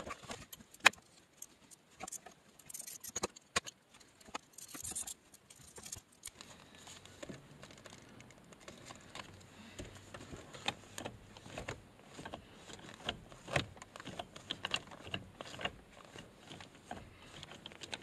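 Scattered small clicks, taps and rattles of plastic console trim being handled and pressed into place around a freshly installed short shifter, with a few sharper clicks in the first second.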